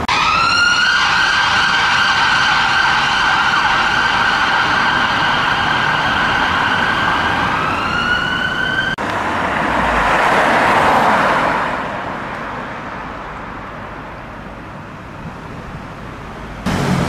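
Emergency vehicle siren on a slow wail: the pitch rises and holds one long steady tone for about seven seconds, then dips and climbs again before breaking off. After that comes a rush of traffic noise that swells and fades.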